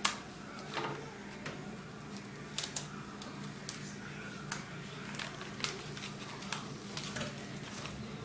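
Paper and tape being handled: irregular crinkles and sharp clicks, the loudest right at the start, over a low steady hum.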